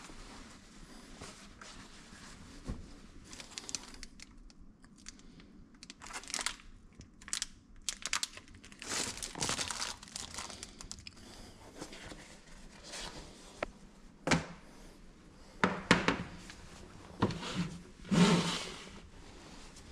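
Paper bag crinkling and rustling in fits and starts as it is opened and handled by hand, with a few short thumps near the end.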